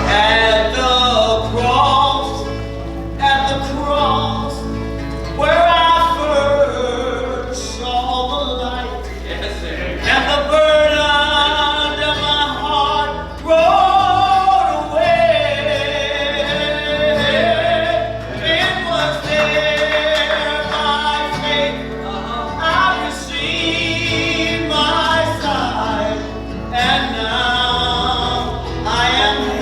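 Worship singing of a gospel hymn: held, gliding sung notes over steady instrumental accompaniment.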